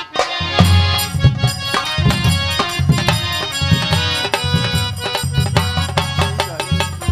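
Instrumental folk music: hand drums beat a quick, steady rhythm under a sustained melody.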